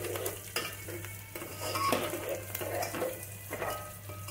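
Steel spoon stirring, scraping and clinking against a metal pot as chopped onion and ginger fry in hot mustard oil, with a steady sizzle underneath.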